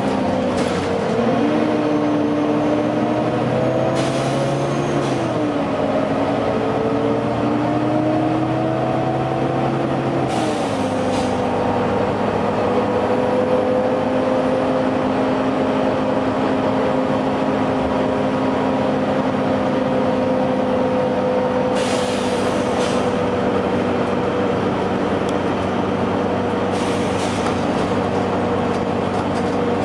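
Volvo B9TL double-decker bus running with a loud cooling-fan whine over the engine; the pitch shifts a few times in the first ten seconds, then holds steady. About five short air hisses from the bus's pneumatics come at intervals.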